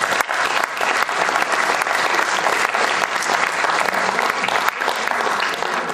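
Audience applauding: many people clapping steadily at the close of a talk.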